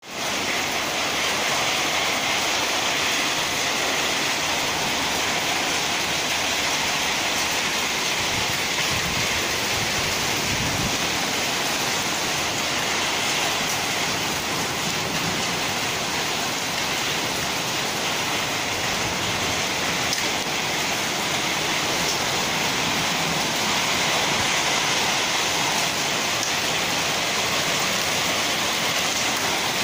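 Hailstorm: hailstones falling thickly and pelting the ground, paving and garden plants, a steady dense hiss.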